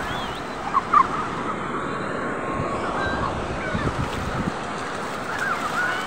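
Surf washing in steadily onto a sandy beach, with short distant shouts and squeals of people scattered through it, a couple of sharper ones about a second in.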